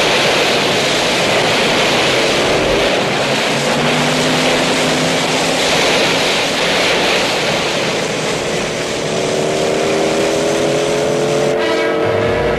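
A car engine running hard through shallow surf, its note slowly climbing twice as it speeds up. Under it is a steady rush of spraying seawater and waves.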